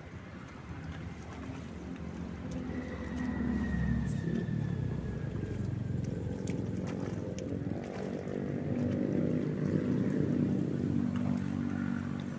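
A small engine running, swelling louder about four seconds in and again near the end, over the sloshing of someone wading through water.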